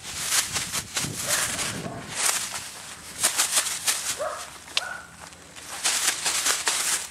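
Footsteps crunching and rustling over grass and dirt, with two brief high calls about four and five seconds in.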